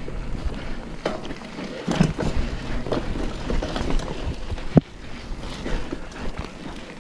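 Mountain bike rolling down a dirt forest trail: tyres on dirt with the bike rattling and knocking over bumps, wind rushing over the microphone, and one sharp knock about halfway through.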